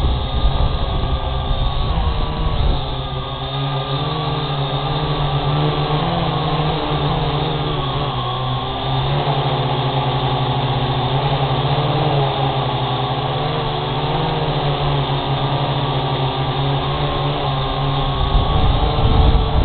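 Syma X8G quadcopter's motors and propellers whirring steadily, the pitch wavering up and down as the throttle changes.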